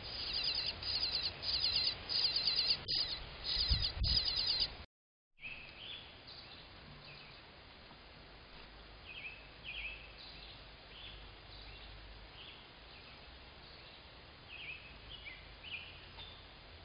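Eastern bluebird nestlings close to fledging begging at a feeding visit: rapid, high, repeated chirps, with a low thump about four seconds in. After a sudden break about five seconds in, only fainter, scattered chirps remain.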